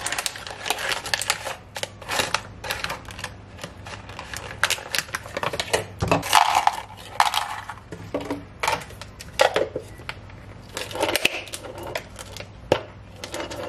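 Crinkling of a clear plastic sleeve of brown rice crackers being handled, with a quick run of crisp clicks and taps as crackers are taken out and laid on a plate. A plastic tub is handled near the end.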